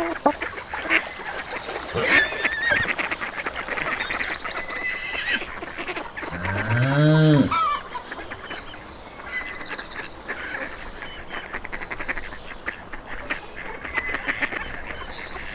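Morning farmyard animal calls: a busy mix of short calls and chirps throughout, with a cow mooing once, long and rising then falling, about six seconds in.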